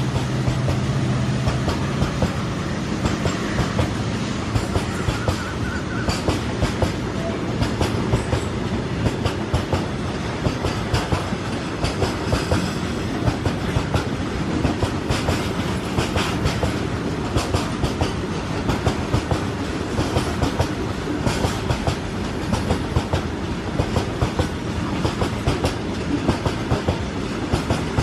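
Long freight train of covered goods wagons rolling past at speed, the wheels clicking in regular clusters as each bogie crosses the rail joints. A low drone from the receding diesel locomotives fades out in the first couple of seconds.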